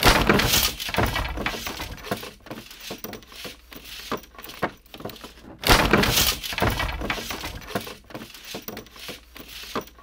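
Foley recreation of a wooden shed being smashed apart: wooden boards cracking and splintering, with objects and debris clattering down. There is a loud crash at the start and another about six seconds in, with smaller cracks and knocks between them.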